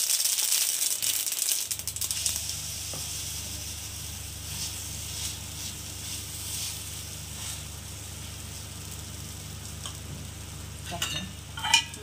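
Oil sizzling on a black iron tawa as a potato tikki shallow-fries. The sizzle is loudest in the first two seconds, then settles to a softer steady hiss. A few brief sharper sounds come near the end.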